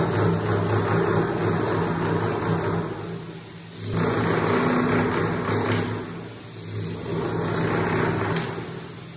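Corded electric demolition hammer chiselling into a plastered wall, running in two long stretches with a short let-up about three and a half seconds in, and easing off near the end.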